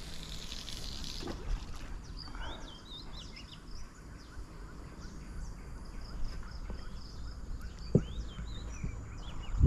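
Small birds chirping with many short high notes over faint outdoor background noise. A brief hiss in the first second or so, and a single sharp click about eight seconds in.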